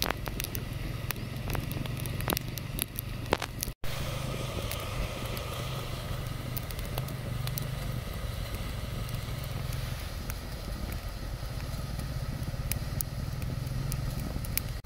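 Open twig fire crackling with many sharp, irregular pops over a steady low rumble; the sound cuts out for an instant nearly four seconds in.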